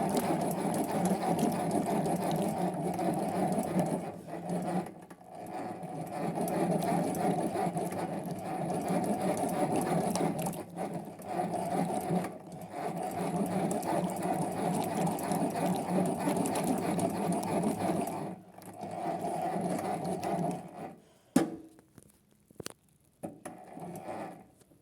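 Small electric motor of a 1960s Hoovermatic twin-tub toy washing machine running with a steady hum. It dips briefly several times, then stops about 21 seconds in, followed by a sharp click and a few light knocks.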